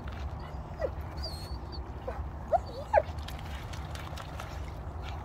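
A dog whining in several short, high, squeaky whimpers through the middle of the clip, over a steady low rumble.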